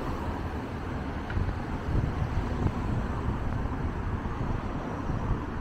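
Street traffic noise with wind buffeting the microphone, as a car drives past and away.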